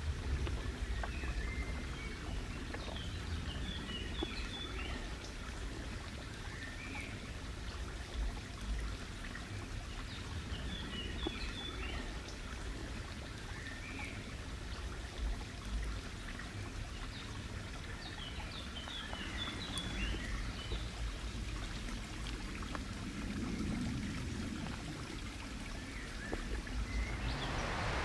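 Outdoor ambience: a small bird chirping in short bursts that recur every several seconds, over a steady background hiss and low rumble.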